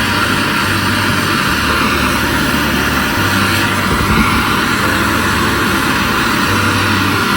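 Handheld gas torch burning with a steady hissing flame while it heats a fluxed copper pipe fitting before solder is applied.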